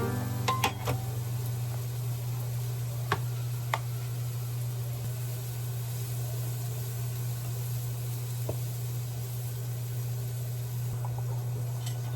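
Steady low hum with a few light knocks and clicks of dishes and utensils, the loudest about a second in and around three and four seconds.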